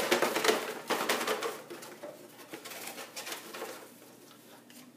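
Paper team slips rustling and rattling inside a cardboard 12-pack beer box as it is shaken and a hand rummages for the next slip. It is loudest for the first couple of seconds, then thins to lighter, scattered rattles that die away about four seconds in.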